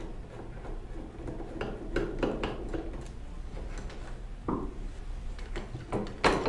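Scattered light clicks and knocks of hands handling a screwdriver and lifting the cover plate off the back of a touchscreen monitor, with a cluster of clicks early and the loudest knock near the end.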